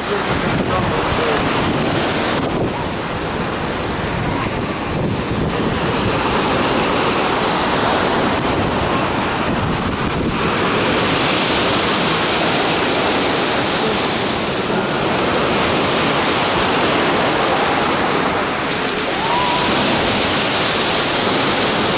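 Rough-sea surf churning and washing in foam around pier pilings and over a pebble beach, with wind buffeting the microphone. The hissing wash grows louder about halfway through and again near the end.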